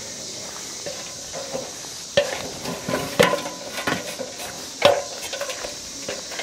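Camera handling noise over a steady hiss: irregular knocks, scrapes and rustles, the sharpest knocks about two, three and five seconds in.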